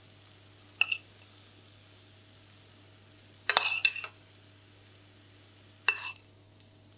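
Metal spoon clinking on a stainless frying pan and a plate as roasted cauliflower pieces are scooped out and set down: three short ringing clinks, about a second in, in the middle and near the end, over a faint steady hiss.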